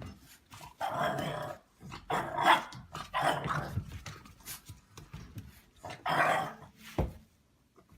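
A dog barking and growling in several short bursts, with a single sharp knock about seven seconds in.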